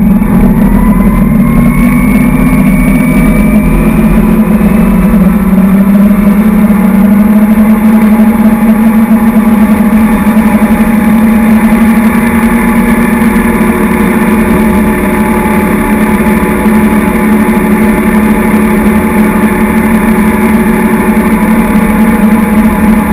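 Tow boat engine pulling a barefoot water skier up out of the water, its pitch rising over the first few seconds, then running steadily at skiing speed, with rushing spray and wind.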